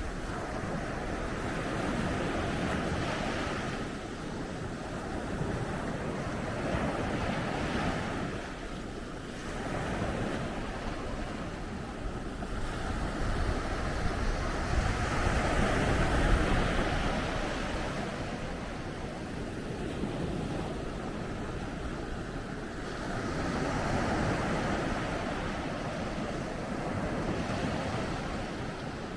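Ocean surf breaking and washing onto a beach, the noise of the waves swelling and fading every few seconds, loudest about halfway through.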